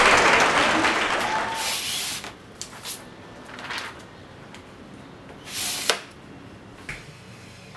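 Audience applause fading out over the first two seconds, followed by a few brief hissing sounds, the loudest about six seconds in.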